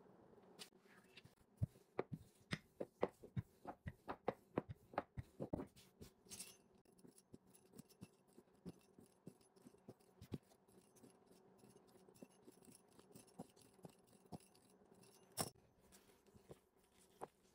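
Faint clicking and tapping of a pastry wheel cutter working through dough on a silicone baking mat. There is a quick run of sharp clicks in the first few seconds, then sparser light ticks and one sharper click near the end.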